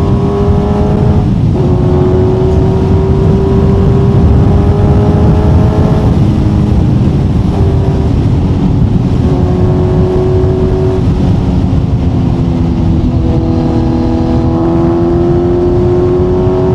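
Kawasaki Z900's inline-four engine through an Akrapovic exhaust, heard from the rider's seat while riding: a steady engine note that climbs slowly in stretches, dipping and picking up again a few times as the throttle or gear changes.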